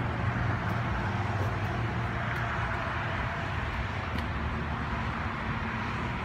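Steady outdoor background noise, a low rumble and hiss like distant traffic, with a few faint ticks.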